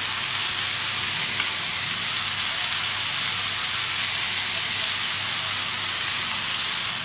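Butter-basted chicken kebabs on skewers sizzling steadily on a hot flat griddle (tawa) kept at medium heat.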